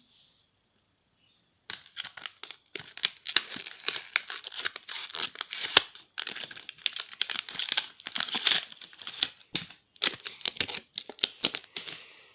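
Plastic packaging crinkling and tearing in irregular bursts, starting about two seconds in: a new fidget spinner being unwrapped.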